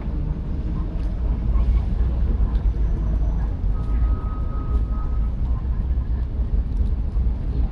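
Outdoor city-street ambience dominated by a steady low rumble of traffic, with a short faint tone about four seconds in.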